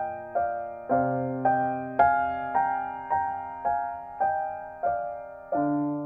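Background music: a gentle piano piece, single notes struck about every half second over lower sustained notes that change about a second in and again near the end.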